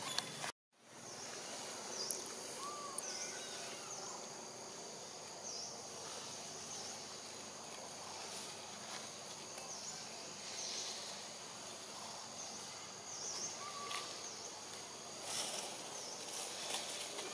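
Outdoor forest ambience over dry leaf litter: a steady background hiss with a short high chirp repeating every second or so, and a few light rustles and clicks. A brief cut to silence comes just after the start.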